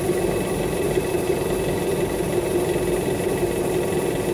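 A 1/4 hp bench drill press running steadily, its motor spinning a permanent-magnet wind-turbine generator at about 370 RPM while the generator charges a 24-volt battery and loads the drill. A steady hum with no change.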